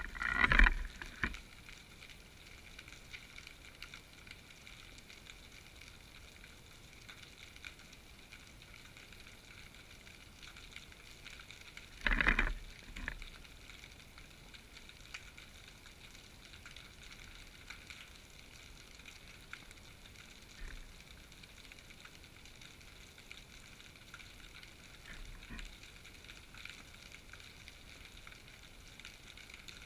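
Underwater sound picked up by a GoPro in its waterproof housing, hanging below a fishing float: a faint steady hiss with fine crackling ticks. Twice, just after the start and about twelve seconds in, there is a louder short bump and rustle.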